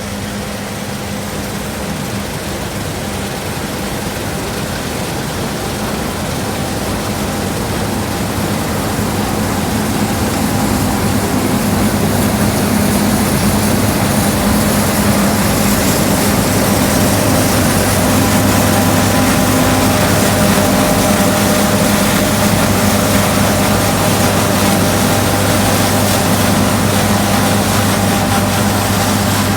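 Combine harvester running steadily while cutting spring barley, a low engine hum with machinery noise over it, growing louder over the first dozen seconds and then holding level.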